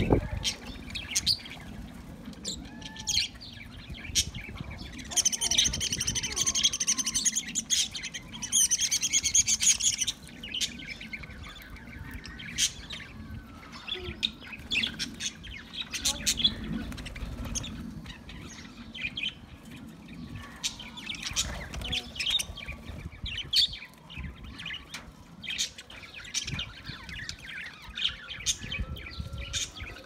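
A flock of budgerigars chirping and chattering, with a dense spell of rapid warbling chatter from about five to ten seconds in.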